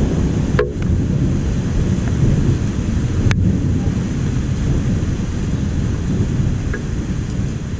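Thunder rolling in a long, low rumble that slowly fades, with a couple of brief sharp clicks.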